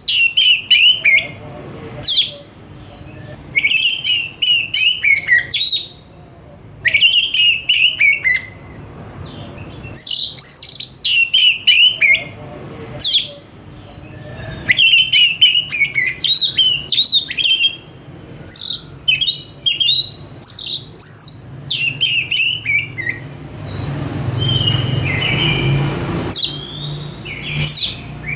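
Oriental magpie-robin (kacer) singing a loud, varied song in short bursts of sharp whistled and chattering phrases, a new phrase every two or three seconds. About three-quarters through, a brief low rumbling noise sits under the song.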